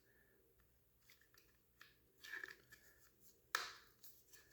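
Faint handling of the paintball marker's parts as the feed bridge is put back in, with a few small rattles and one sharper click about three and a half seconds in.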